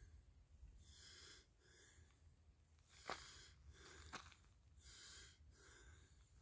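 Near silence: faint outdoor room tone with soft hissy noise that comes and goes, and two small clicks about three and four seconds in.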